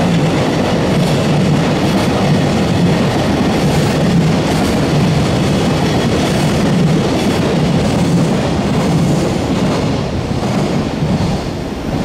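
Freight train of mostly empty container flat wagons rolling past: a loud steady rumble of steel wheels on rail with a rhythmic clickety-clack over the rail joints, easing slightly near the end as the last wagon goes by.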